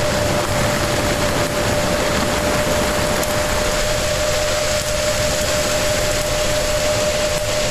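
Underwater recording of ship traffic: a loud, steady wash of noise with one constant hum running through it, pretty noisy.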